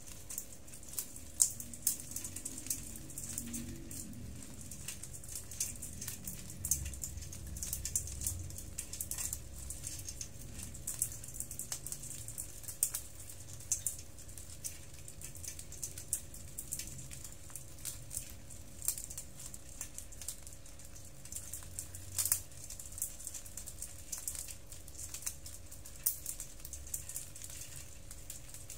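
Dozens of small hermit crabs crawling over one another in a basin, their shells clicking and tapping against each other and the basin in a continuous, irregular rattle of tiny ticks.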